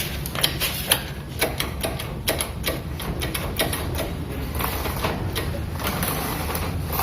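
Quick, uneven mechanical clicking over a low steady hum as the Yamaha XJ6's freshly fitted rear brake is tried out on the turning rear wheel.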